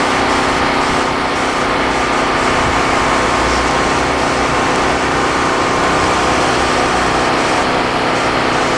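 Portable generator's small petrol engine running steadily at a constant speed.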